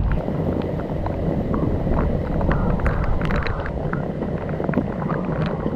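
Storm-force wind buffeting the microphone as a heavy, low rumbling rush, with scattered small ticks throughout.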